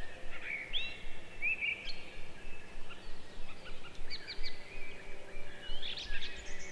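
Sliced onions, ginger and garlic sautéing in coconut oil in a nonstick kadai over a medium flame, stirred with a wooden spatula in quick, repeated strokes. High, short chirps sound over it throughout.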